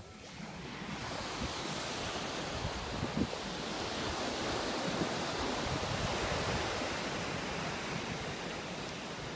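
Small sea waves breaking and washing up a sandy beach, a steady surf wash that swells in the first second, with wind rumbling on the microphone.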